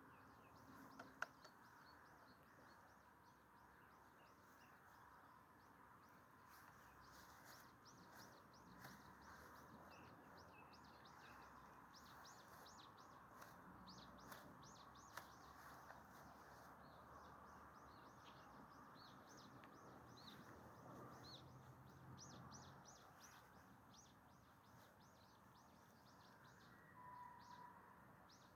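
Faint birdsong: many short, high chirps and tweets over a low, even background hiss. A single sharp click about a second in.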